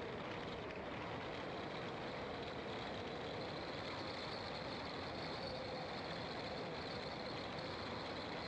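A car being driven: steady engine and road noise with a faint high whine.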